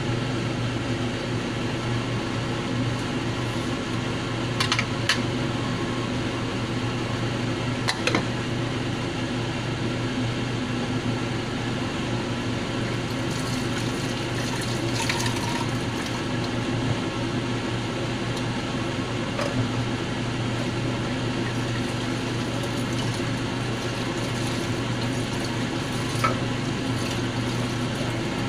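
A steady low appliance hum, with a few light clinks of a spoon and a glass lid against a metal saucepan.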